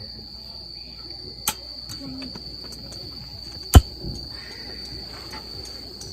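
Insects chirping in a steady high-pitched drone, with one sharp knock a little before four seconds in and a fainter one at about a second and a half.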